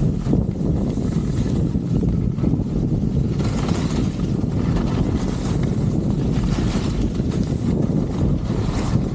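Steady wind rushing over the camera microphone while skiing downhill at speed, with the hiss of skis sliding on groomed snow.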